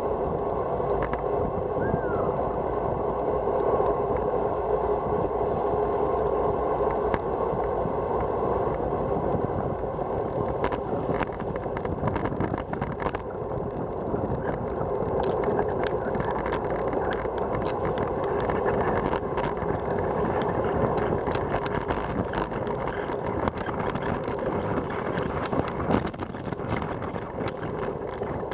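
Wind rushing over a bicycle-mounted camera's microphone, mixed with road noise, during a fast descent. Scattered sharp clicks and rattles come in from about halfway through.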